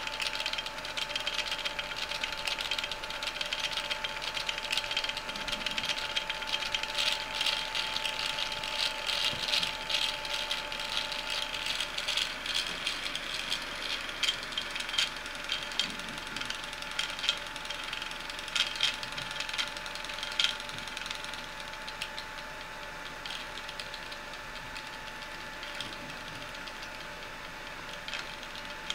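Stepper motors of a mini drawing laser projector clicking and rattling rapidly as they jerk the scanning mirrors through the patterns, over a steady high whine. The clicking is busiest in the middle and thins out near the end.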